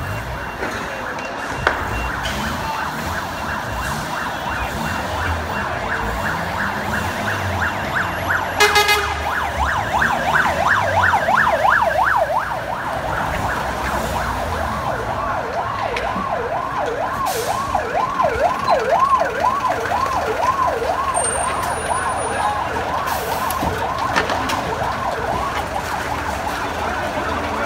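Fire engine siren arriving: a short horn blast about nine seconds in, a fast yelping sweep for a few seconds, then a pulsing siren rising and falling about twice a second.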